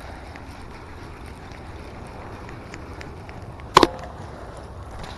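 Steady outdoor background hiss with scattered faint clicks, and one sharp knock with a brief ringing tone nearly four seconds in.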